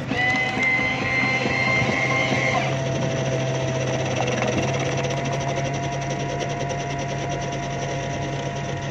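Coin-operated tea vending machine dispensing tea into a paper cup: its pump and mixing motor run with a steady hum and whine. The higher whine drops out after about two and a half seconds, and the machine cuts off at the very end.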